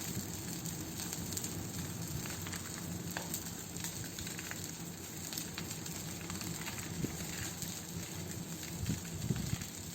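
Bonfire burning with a steady hiss and frequent sharp crackles and snaps scattered through it.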